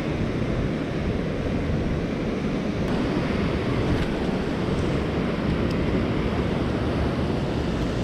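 Steady rush of a mountain stream running over rocks and a small cascade, with a few faint ticks over it.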